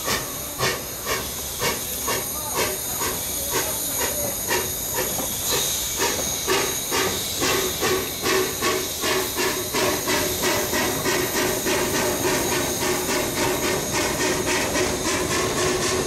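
760 mm narrow-gauge steam locomotive pulling away with a train of log wagons: sharp exhaust chuffs at about two a second, quickening to three or four a second as it gathers speed, over a steady hiss of steam. A steady tone joins about six seconds in.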